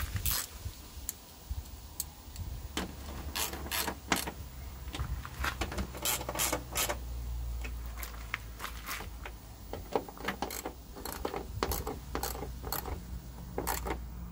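Socket ratchet wrench clicking in short, irregular runs as a headlamp mounting bolt is turned.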